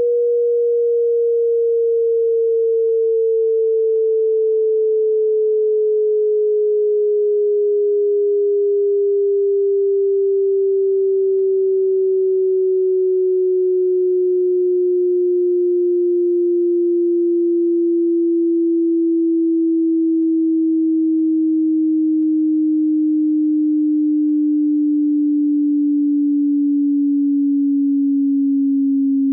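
A single pure sine tone sliding slowly and evenly lower in pitch: the descending sweep of a high-to-low hearing test.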